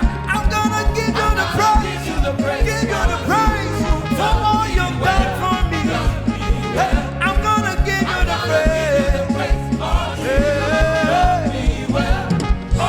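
Live church praise band playing an upbeat song with a steady beat and bass line, and a melody line over it that is possibly wordless singing or a lead instrument.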